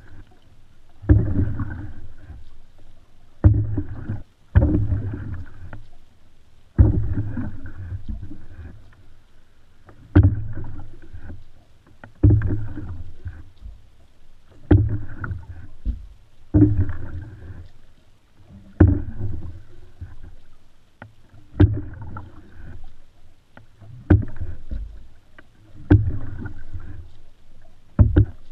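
Open canoe being paddled at a steady pace, about one stroke every two seconds. Each stroke starts with a sharp knock and trails off in a second or so of rushing water.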